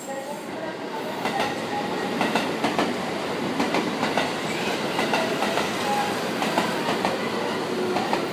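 JR West 223-series electric multiple unit running past along the platform, a steady rumble with wheels clicking over the rail joints as the cars go by.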